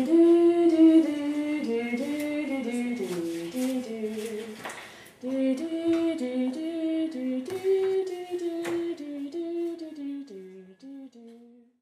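Wordless female voices singing a slow melody in two-part harmony, like humming. The sound breaks off briefly about five seconds in, then dies away near the end.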